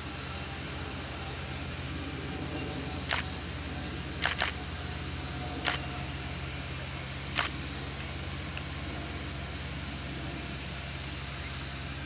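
Small rice combine harvester's engine running steadily at a distance as it cuts the paddy, under a steady high drone of insects. A handful of sharp clicks come in the first half.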